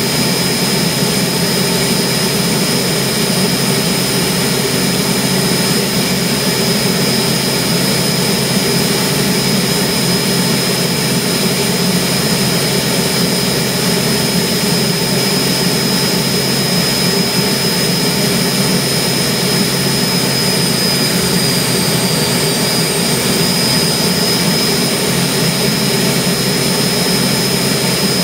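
Turbomeca gas-turbine engine running steadily on a ground-run stand: a loud, even turbine noise with steady high-pitched whines. One whine dips and wavers slightly about three-quarters of the way through.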